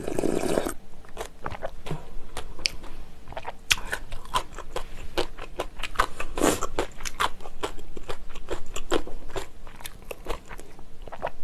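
Broth slurped straight from a bowl of spicy noodle soup for about the first second, then close-miked chewing: a long run of irregular small crunchy, wet mouth clicks.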